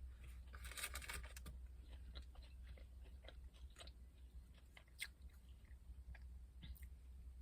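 A person chewing a McDonald's burger and fries close to the microphone: faint, scattered mouth clicks and chewing, busier about a second in, with a sharper click about five seconds in.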